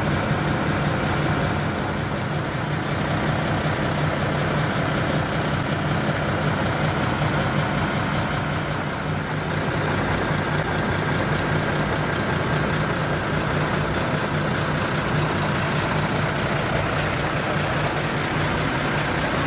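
Heavy truck diesel engine idling steadily.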